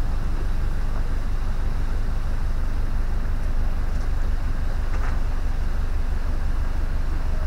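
Narrowboat engine running steadily, a low even drone.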